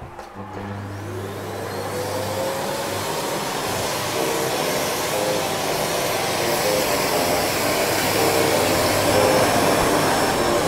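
Upright bagless vacuum cleaner motor starting up with a rising whine over the first couple of seconds, then running steadily and growing slowly louder.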